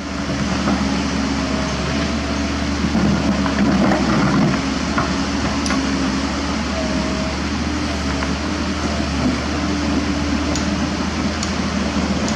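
Komatsu PC130F excavator's diesel engine running steadily, with a few brief whines and scattered clicks over the drone.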